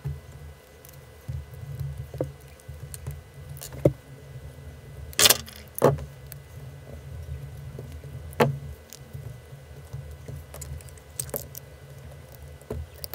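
Small screws, standoffs and the amplifier board's case clicking and clinking as they are handled and fitted together by hand on a silicone work mat. A few sharper knocks come, the loudest about five and a half and eight and a half seconds in, over a low steady rumble.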